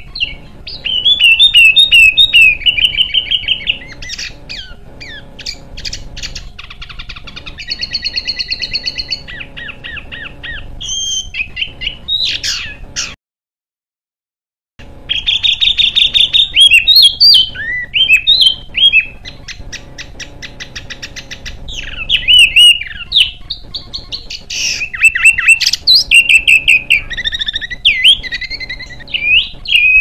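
Small songbirds singing in quick, harsh, high-pitched bursts of chirps and fast trills, spliced together into a bird-song compilation. The song drops out to silence for about a second and a half midway through.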